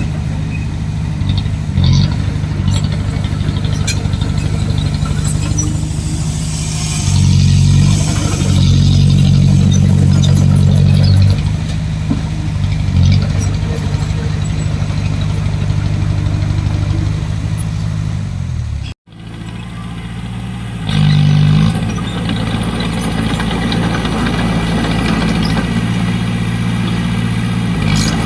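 Diesel engines of earthmoving machinery running steadily, growing louder under load a few times. The sound drops out abruptly about two-thirds of the way through and comes back.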